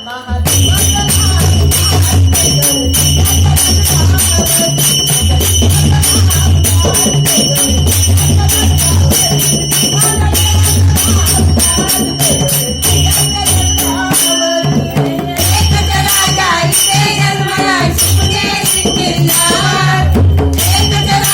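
Song music with a steady, repeating bass beat and jingling, tambourine-like percussion, with a melody line coming in over it in the second half.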